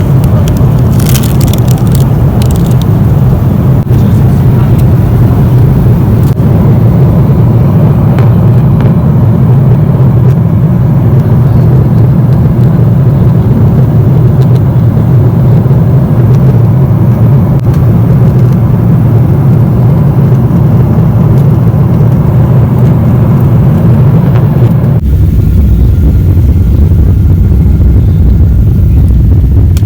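Loud, steady airliner cabin rumble of jet engines and airflow, heard through the cabin. A few light clicks come in the first seconds, and the rumble turns abruptly deeper near the end.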